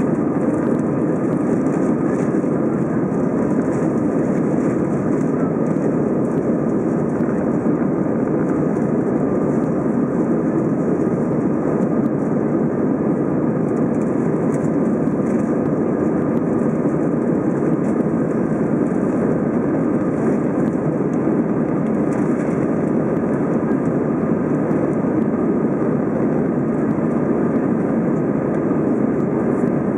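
Steady cabin noise of an Airbus A320 climbing after takeoff, heard inside the cabin by a window over the wing: a deep, even rush of engine noise and airflow at climb power, with faint steady whining tones above it.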